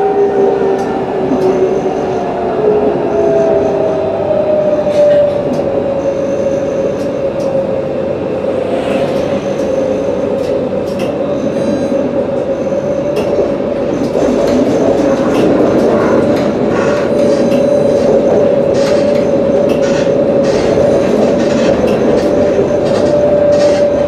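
Alstom Citadis 302 low-floor tram running along its line: a steady electric whine that drops a little in pitch over the first few seconds and then holds, over a constant rumble of wheels on rail, with scattered clicks later on.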